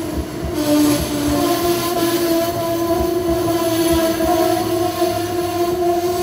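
Amtrak stainless-steel passenger train passing close by at speed: a steady rumble with a steady high tone running over it, and wheels clacking over the rail joints in pairs about once a second.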